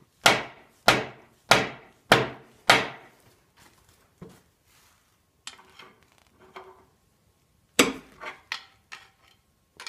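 A dead blow hammer gives the bolt in the front snout of an Oldsmobile 307 V8 crankshaft five quick, sharp taps about half a second apart, driving the crank rearward to seat it against the thrust bearing while the No. 3 main cap is only lightly torqued. A few lighter knocks and clicks follow near the end.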